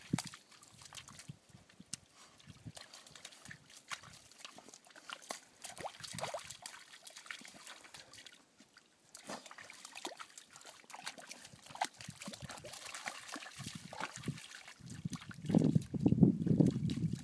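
Vizslas sniffing with their noses in muddy puddle water and sloshing through it: scattered small splashes and wet sniffs, louder and closer near the end.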